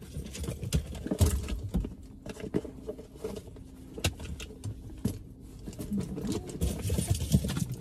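Rustling and a run of light clicks and knocks as a person shifts about in a car's driver's seat, heard inside the cabin.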